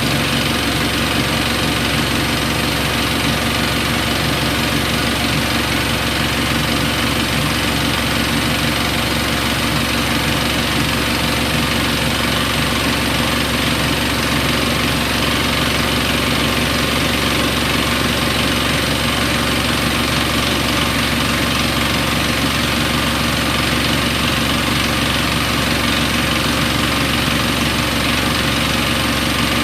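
Siemens Siwamat iQ washing machine running steadily: a constant low motor hum with vibration, no change in speed or level throughout.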